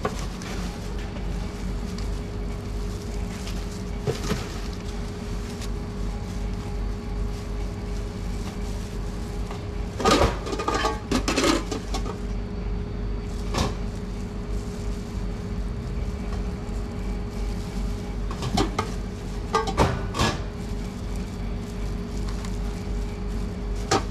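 Food being prepared by hand at a sandwich counter: gloved hands rustling and setting down lettuce, basil and paper-lined trays, with short bursts of clatter about ten seconds in and again near twenty seconds. A steady background hum runs underneath.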